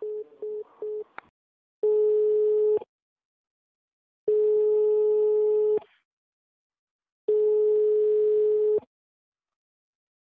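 Telephone line tones, one steady pitch: three short beeps of a busy signal as the call ends, then three longer beeps of about a second to a second and a half each, with silent gaps between them.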